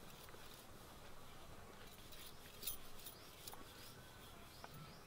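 Faint, light clicking and scraping of a wooden rolling pin rolling out roti dough on a round stone board, a little busier about halfway through.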